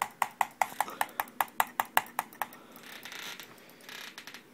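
A Dell USB mouse button clicked rapidly over and over, about five clicks a second, stopping about two and a half seconds in, followed by two short stretches of soft rustling noise.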